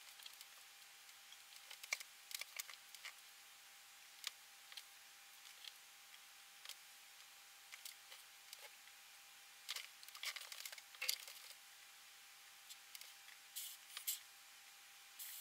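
Faint scattered clicks and taps of fingers handling a small printed circuit board held in metal helping-hand clips, over a faint steady whine. Near the end come two short hisses.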